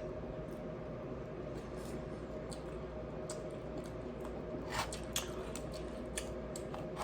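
Quiet eating sounds from spoonfuls of berries, ice cubes and coconut water: faint spoon clicks and chewing, with two sharper clicks about five seconds in, over a steady background hum.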